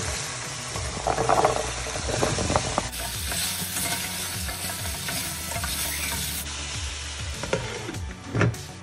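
Cut potatoes and carrots tumbling into a hot pan and sizzling as they fry. Near the end a glass pot lid is set down on the pan with one sharp knock.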